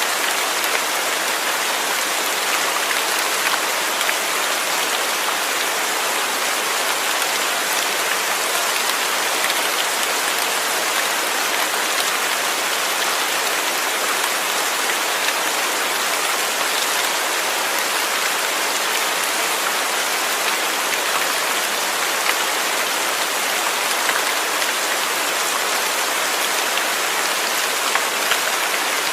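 Steady rain falling, an even hiss of many small drops striking a surface, unchanging in strength.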